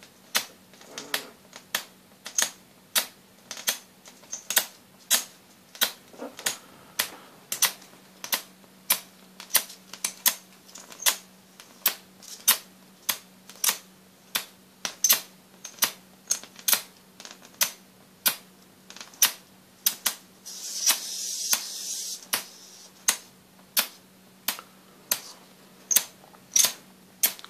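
ZVS-driven high-voltage Jacob's ladder (traveling arc) running at about 24 volts, its arc cracking sharply about twice a second as it climbs, breaks and re-strikes, over a steady low hum. A brief hissing rush comes a little after two-thirds of the way through.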